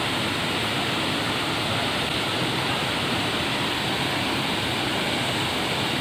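Small waterfall pouring into a rock pool: a steady, even rush of water.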